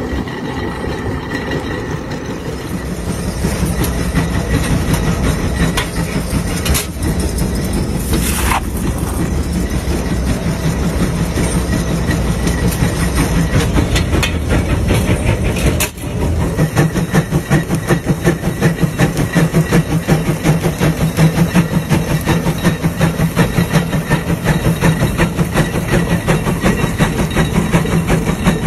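Large steam traction engine running, its exhaust chuffing in a steady rhythm that becomes louder and more distinct about sixteen seconds in.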